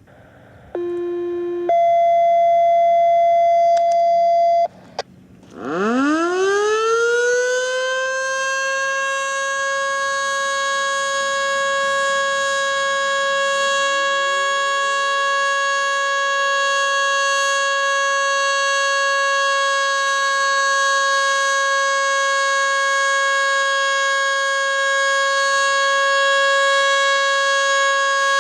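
Two steady electronic tones, a short lower one and then a longer, louder higher one. About a second after they stop, a Federal Signal Model 2 siren winds up, its pitch rising quickly and then holding a steady wail. Some eight seconds later, a second, fainter siren winds up underneath it.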